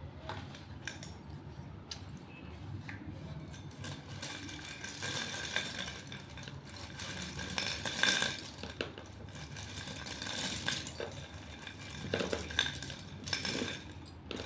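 Slate pencils clicking and clinking against one another as they are handled, with scattered sharp ticks and a few louder clacks.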